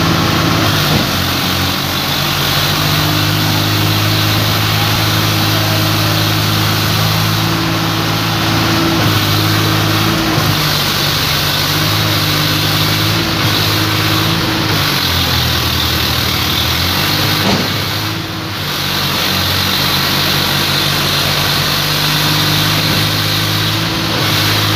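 Swaraj 744 FE tractor's three-cylinder diesel engine running steadily while hitched to a loaded trolley on mud, its note dipping briefly about two-thirds of the way through before picking up again.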